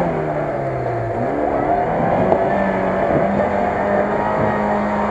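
Lada Niva's engine revving as the 4x4 pulls through deep mud. The revs drop over the first second, then pick up and hold steady, with one brief knock about two seconds in.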